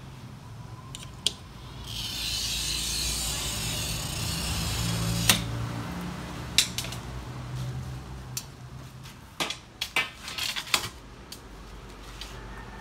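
A hand glass cutter scores a sheet of tinted glass along a straightedge, making a scratchy hiss that lasts about three seconds. It is followed by a single sharp crack. Near the end comes a quick run of sharp clicks and taps of tools and glass.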